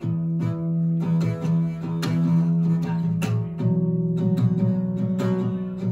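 Guitar playing the opening chords of a song's intro. It starts suddenly and changes chord about three and a half seconds in.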